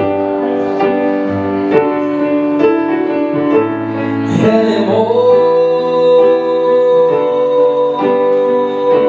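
Live song: piano chords played between sung lines. About four seconds in, a singer's long wordless note slides up and is then held.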